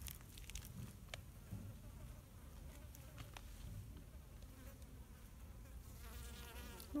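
Faint buzzing of a wasp's wings in flight, a wavering drone that comes through more clearly near the end.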